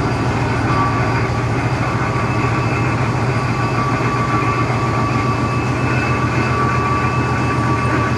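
Heavy diesel engine of piling machinery running steadily under a low hum, with a thin steady whine above it and no pile-driving blows.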